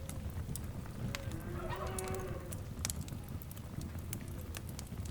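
Fire crackling, with frequent sharp pops over a low rumble. About a second in, an animal call with a few held pitched tones rises above the fire for about a second and a half.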